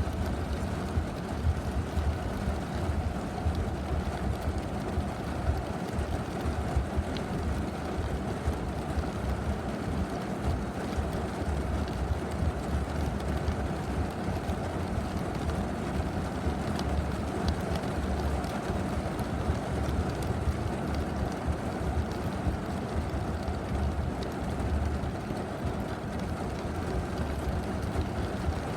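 Rain falling steadily: a dense, low rushing noise with occasional faint ticks.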